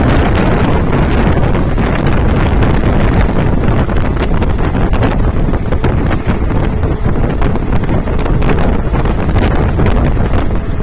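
Wind rushing across the microphone over the steady rumble of a moving passenger train's coaches, heard from on board, with scattered clicks and rattles.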